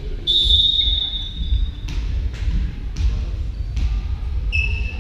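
Referee's whistle blown once and held for about a second and a half to start the rally, then several sharp thuds of a volleyball being struck as play gets under way, echoing in a large sports hall.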